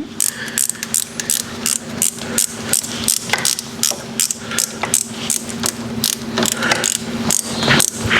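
Hand tools clicking and tapping against metal parts while a motorcycle carburettor is worked on and reassembled: a quick, irregular run of sharp clicks, several a second.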